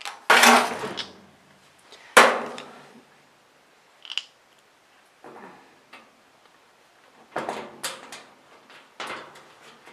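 Metal parts of a kerosene heater knocking and clanking as they are handled and fitted, a handful of separate knocks, the loudest two in the first couple of seconds.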